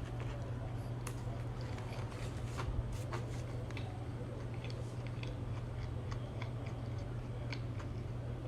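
A person chewing a bite of a barbecue chicken sandwich close to the microphone: small irregular crunches and mouth clicks, over a steady low hum.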